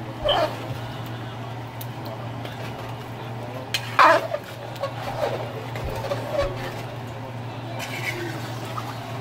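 Metal spoon stirring a stew in a pot, with a few knocks and scrapes against the pot, the loudest about four seconds in, over a steady low hum.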